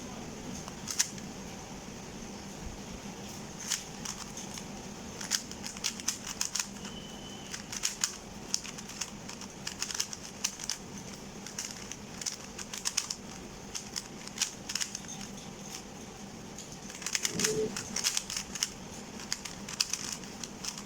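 GAN 354M magnetic 3x3 speed cube being turned fast by hand: irregular quick clicks of the layers snapping round, coming in bunches.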